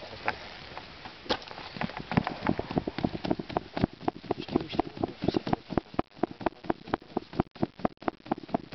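A cloth scout neckerchief flapped rapidly up and down over smouldering kindling, a fast run of flapping strokes, several a second, setting in about two seconds in. The air is fanned onto a damp fire that won't catch.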